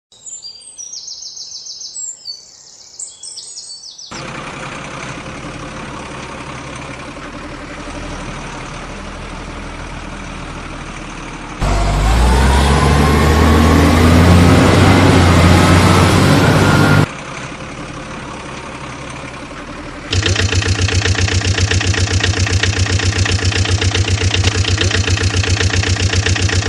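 Truck engine sound effects in separate clips: after a few seconds of high chirping, an engine runs steadily, then revs louder with a rising whine for about five seconds from roughly twelve seconds in. It drops back, then runs again from about twenty seconds in with a strong, even, rhythmic throb.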